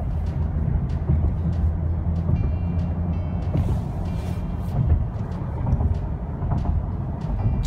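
Steady low rumble of road and wind noise inside a moving Mercedes-Benz car's cabin.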